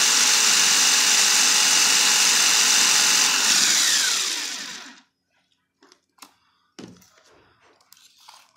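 Electric countertop blender running at full speed, mixing water, sugar and milk powder. About four seconds in it is switched off, and its whine falls away as the motor winds down. A few light clicks and knocks follow.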